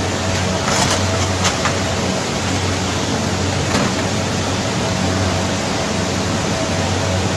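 Fast muddy floodwater rushing down a street, a steady wash of noise with a few brief knocks in the first half.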